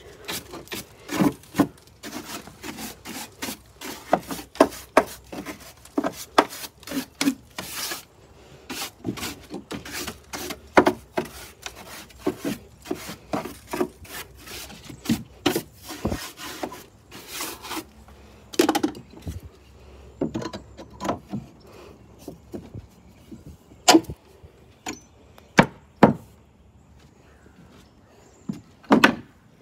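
Irregular scraping and knocking on wooden stair treads: quick rubbing strokes for much of the time, thinning out after about 18 seconds, with a few louder knocks near the end.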